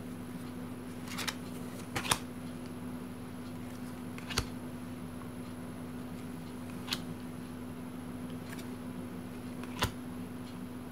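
Board-game cards being handled and sorted by hand, with several short sharp clicks of card against card spread through, over a steady low hum.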